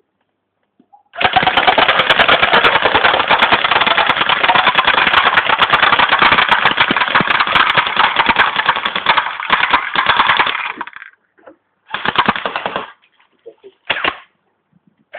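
Airsoft electric gun firing on full auto: one long burst of rapid shots lasting about nine and a half seconds, then two short bursts.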